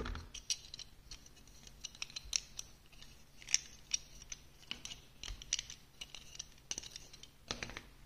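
Plastic building-block marble-run pieces being handled and fitted together by hand: a run of small, irregular clicks and scrapes of plastic on plastic, the sharpest about three and a half seconds in.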